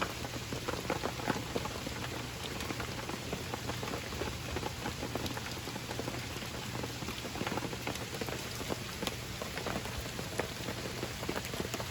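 Steady rain falling, with many separate drops ticking sharply close to the microphone.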